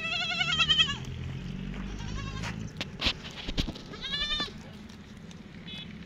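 Goats bleating: a long, wavering bleat at the start and another about four seconds in, with a shorter call between them. Two sharp clicks fall between the bleats.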